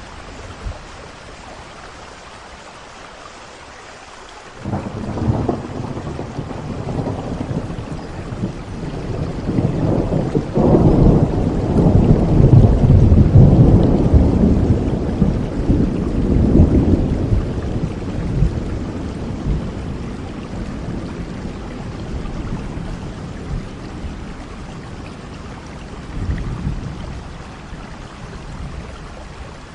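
Steady rain with a long roll of thunder that starts about four seconds in, builds to its loudest in the middle and slowly fades, followed by a shorter rumble near the end.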